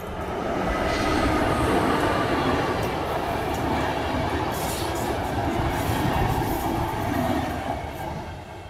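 A train passing on the track: a dense rumble of wheels on rails that grows louder over the first second, holds, then fades away near the end.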